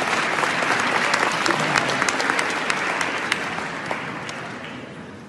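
Audience applauding, a dense patter of clapping that fades away over the last two seconds.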